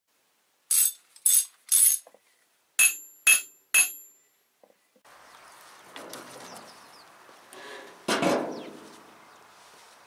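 An intro sound effect of six sharp, ringing clinks in two quick sets of three over silence. After that comes faint outdoor background noise, with a louder knock about eight seconds in.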